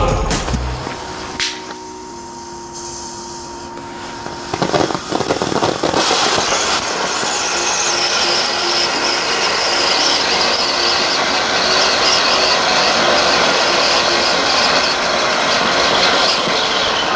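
Small Category 1 ground fountain firework ('Golden Flower') spraying sparks with a steady hiss that starts about five seconds in.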